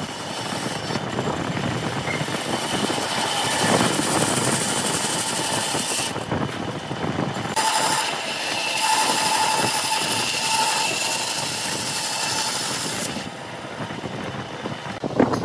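Bandsaw running and its blade cutting through a thick block of wood, a continuous rasping saw noise over a steady motor whine. The cutting noise thins out briefly a little past the middle and drops in level near the end.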